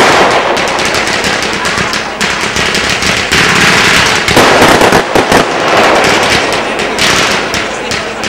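Firework cake firing a fan of comets in quick succession: a loud, dense hiss and crackle of launches that swells and eases in waves every second or two.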